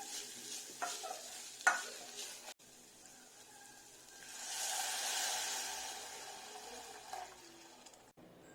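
Food sizzling in a pan as it is stirred with a spoon, with a few scrapes and knocks in the first couple of seconds. The sizzle swells for a couple of seconds in the middle and then fades.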